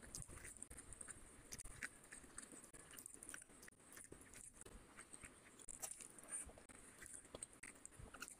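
Faint, close-miked eating sounds: wet chewing and lip smacking over a mouthful of fish curry, a steady run of small irregular clicks.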